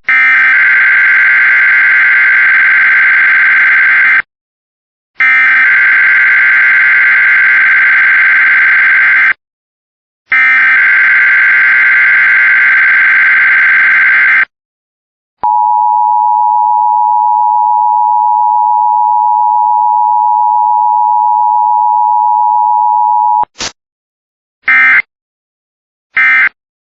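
Emergency Alert System test tones. First come three bursts of screeching SAME header data, each about four seconds long with a one-second gap. Then the steady two-tone attention signal sounds for about eight seconds. Near the end, the short end-of-message data bursts begin.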